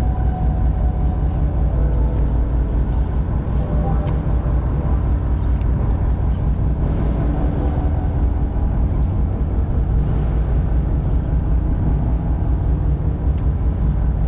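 Boat engine running with a steady low rumble, mixed with wind and water noise, while a fish is fought from the deck.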